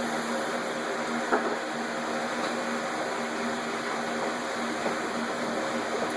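Steady mechanical hum over a low hiss, broken twice by a sharp crackle of wood burning in the rocket stove's firebox.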